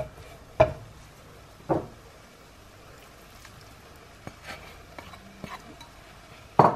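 A plastic spatula knocking and scraping in a non-stick frying pan as floured chicken and gammon pieces are stirred, over a faint sizzle. Chopped leeks are tipped in from a bowl partway through with a few small ticks, and there is a louder knock near the end.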